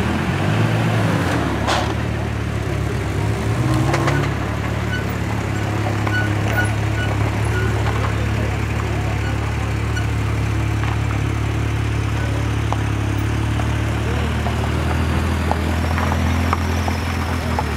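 Engine of a first-generation Suzuki Vitara 4x4 running steadily under load as it crawls through a muddy off-road course. The revs rise briefly about four seconds in.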